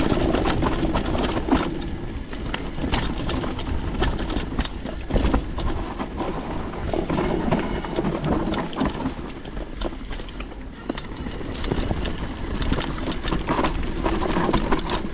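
Mountain bike riding down a dirt trail: steady tyre noise on the ground with frequent rattles and knocks as the bike goes over bumps.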